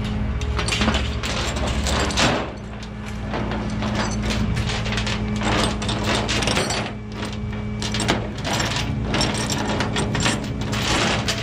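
Steel tow chain and hooks clanking and rattling against the rollback's diamond-plate steel bed as they are handled, in many irregular clinks. Underneath, the tow truck's engine runs with a steady hum.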